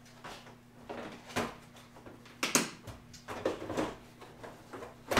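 Hand tools and a metal tool-box drawer being handled: a string of sharp knocks and clicks, the loudest near the end, over a faint steady low hum.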